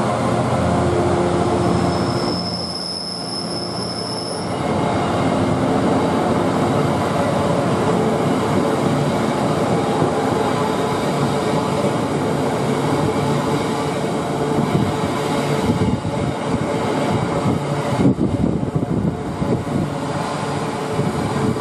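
Loaded stone hopper wagons of a freight train rumbling steadily past behind a Class 66 diesel locomotive, whose engine fades over the first couple of seconds. A high-pitched wheel squeal sounds from about two seconds in for a couple of seconds, and the wheel noise grows rougher near the end.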